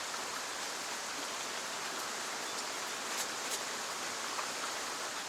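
Steady rushing of running water, an even hiss, with a few faint clicks.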